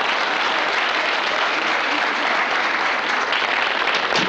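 Studio audience applauding steadily, with a door shutting about four seconds in.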